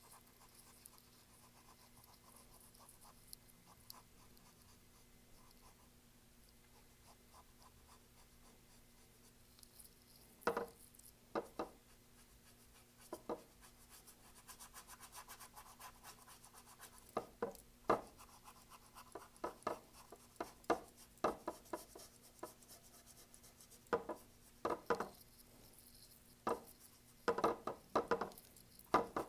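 Paintbrush strokes on canvas: faint, irregular scratching, with short brushing strokes and light taps becoming more frequent from about a third of the way in.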